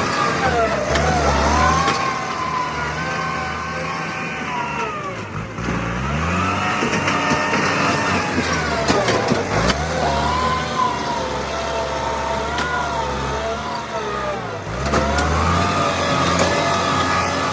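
Bulldozer's diesel engine working hard, its pitch dipping and climbing back again about every four to five seconds.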